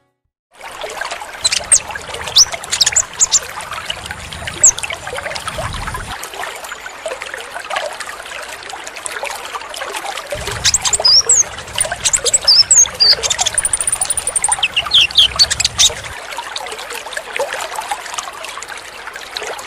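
Short, high-pitched chirps and twitters of a kolibri ninja (konin) sunbird, coming in bunches near the start and again in the middle, over a steady trickle of running water.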